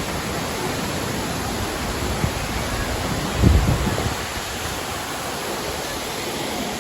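Düden Waterfall's falling water, a steady even rush. A brief low thump about three and a half seconds in.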